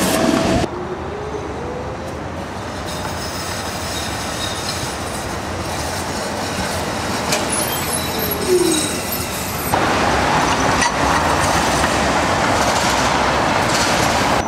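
Milan's Peter Witt streetcars running over street track with a steady rolling rumble. There is a short wheel squeal about eight seconds in as a tram rounds a curve, and the running noise is louder in the last few seconds.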